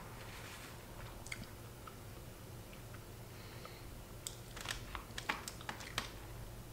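Close-up chewing, then from about four seconds in a quick run of light clicks and taps as chopsticks pick food out of a plastic bento tray.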